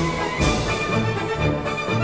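Background music with orchestral instruments and a rhythmic bass line.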